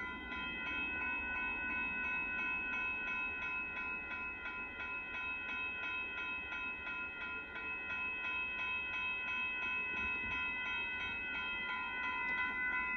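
Railroad crossing warning bell ringing steadily in rapid, evenly spaced strokes, about four a second, over a low steady rumble.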